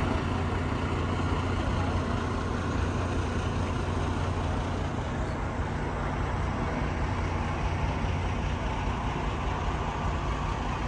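Steady low rumble of an idling vehicle engine over outdoor traffic noise, unchanging throughout.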